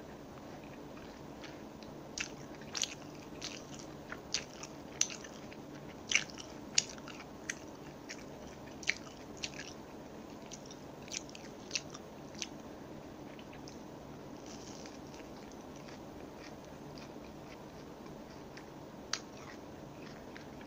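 Close-miked chewing of a crispy breaded chicken nugget: a run of sharp crunches, about two a second, over a faint steady hiss. After about ten seconds they thin out, with one more crunch near the end.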